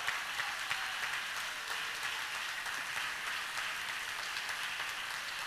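Congregation applauding: a dense, steady patter of many hands clapping that slowly dies down.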